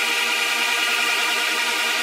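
Animoog software synthesizer playing one sustained, unchanging drone preset: a dense, buzzy stack of held tones with no deep bass.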